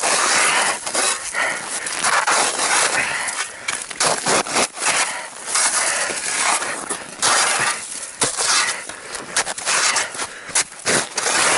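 Hard-packed, refrozen snow crust being dug and chipped out by hand: irregular crunching and scraping strokes, several a second, with sharp breaking cracks among them.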